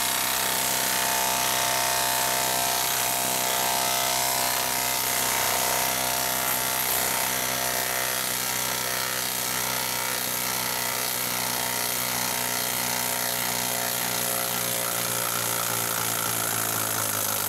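Hilti half-inch cordless impact wrench hammering steadily without a break as it backs a large lag screw out of a wooden log round.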